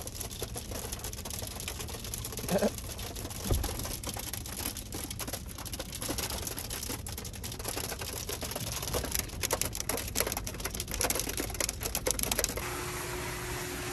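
Rain pattering on a car's windshield and roof, heard from inside the cabin as dense, irregular sharp taps. The tapping stops suddenly near the end, giving way to a faint steady hum.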